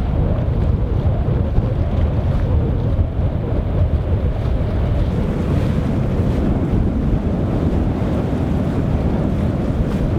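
Wind buffeting the microphone over the steady rush of water along a moving boat's hull.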